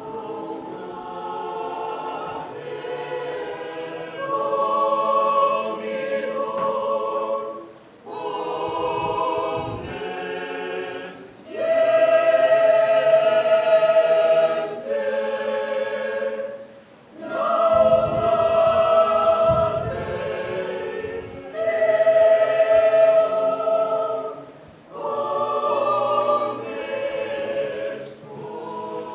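Church choir singing in long held phrases with short breaks between them: the Gospel acclamation sung between the second reading and the Gospel at Mass.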